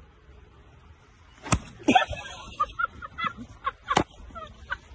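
A golf club strikes ball and turf once with a sharp crack about a second and a half in, a mishit that leaves the ball close by, then laughter in short bursts and another sharp knock near the end.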